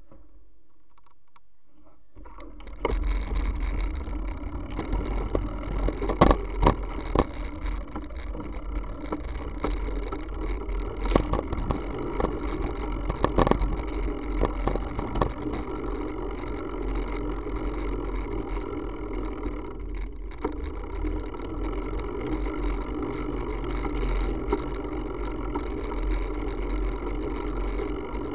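Steady wind rush and road noise from a bicycle riding on a wet road, heavy with low rumble on the microphone, with a few sharp knocks. It sets in suddenly about two and a half seconds in, after a quieter steady hum.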